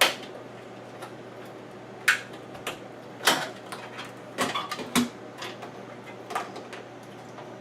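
Scattered sharp clicks and knocks, about six of them a second or so apart, as the plastic top panel of a washing machine and its wiring clips are handled and pressed back into place.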